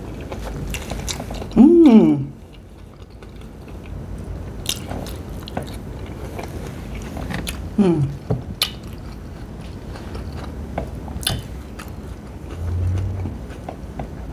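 Close-miked chewing and wet mouth sounds from someone eating a potato dipped in seafood sauce. Twice, about two seconds in and again near eight seconds, there is a hummed 'mmm' of enjoyment that falls in pitch; the first is the loudest.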